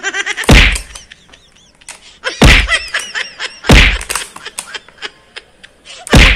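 Four loud thuds at uneven intervals, with short high chirps in the gaps between them.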